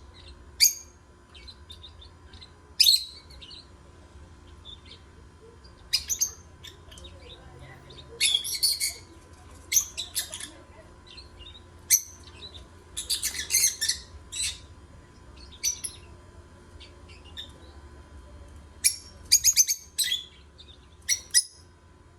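Lovebirds chirping: sharp, high-pitched chirps in irregular bursts, with denser runs about 8 and 13 seconds in and a quick series of chirps near the end, over a faint steady hum.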